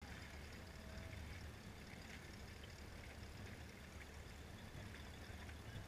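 Faint water trickling and lapping against the hull of a small boat moving slowly, over a low steady rumble.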